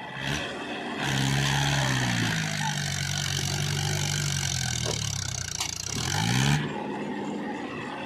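Mahindra 475 DI tractor's diesel engine revving under load as it hauls a loaded trolley of soil. The loud engine noise comes in suddenly about a second in, its pitch settles lower, then climbs again just before it cuts off suddenly.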